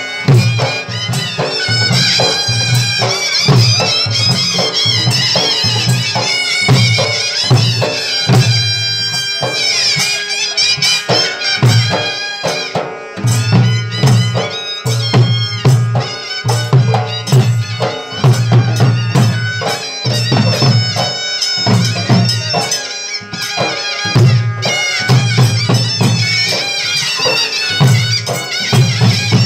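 Live folk music: a shrill reed wind instrument plays a winding melody over a steady beat of large barrel drums.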